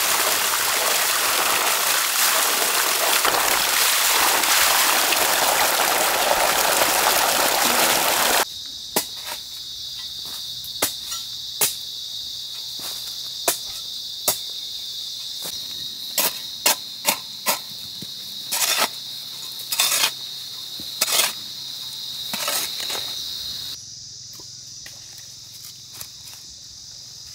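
Water gushing from an irrigation pipe onto the ground, loud and even for about eight seconds. It then gives way to a steady high insect drone, with about a dozen sharp knocks at uneven intervals from a mattock digging into soil.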